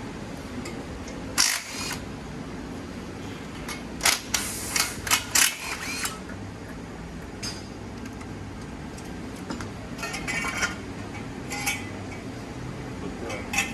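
Metal parts and hand tools clinking and clattering as a dirt bike is taken apart: one sharp clank about a second and a half in, a quick run of clicks a few seconds later, and a short rattle near the end, over a steady low shop hum.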